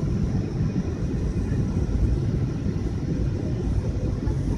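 Airliner cabin noise in flight: a steady low rumble of engines and rushing air with a faint steady hum above it.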